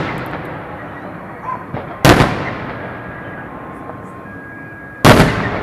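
Aerial firework shells bursting overhead: two loud booms about three seconds apart, each trailing off in a fading echo, with a few faint small pops between them.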